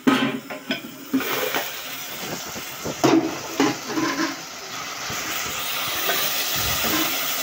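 Tomato, onion and green pepper sauce sizzling in a metal cooking pot, with a few clanks and knocks of the pot's metal lid being handled in the first seconds. The sizzle then settles into a steady hiss.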